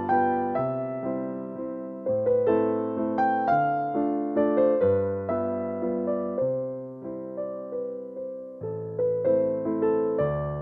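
Background piano music: a gentle keyboard tune of single notes, each struck and fading, over a steady bass line.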